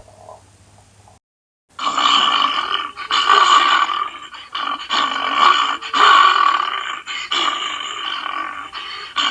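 The cartoon sea bear's growling roar sound effect. It starts loud about two seconds in, after a brief silence, and goes on in several long rough surges with short dips between them.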